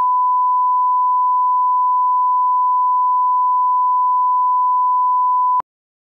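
A steady 1 kHz line-up test tone, the reference tone that goes with television colour bars, as a single unchanging pitch that cuts off suddenly near the end.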